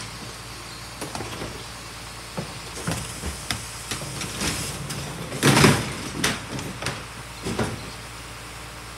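Garbage truck's engine running steadily while plastic wheelie bins are tipped into its rear hopper, giving a string of knocks and clatters, with the loudest crash about five and a half seconds in.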